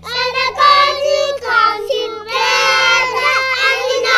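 A group of young children singing together in short phrases, several small voices overlapping, over a steady low hum.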